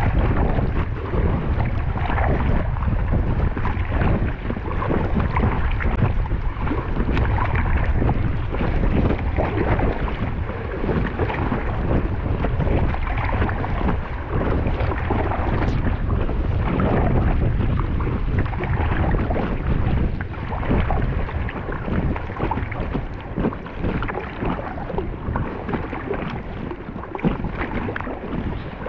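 Wind buffeting the microphone in a steady low rumble, over water splashing and slapping around an Intex Challenger K1 inflatable kayak heading into the wind.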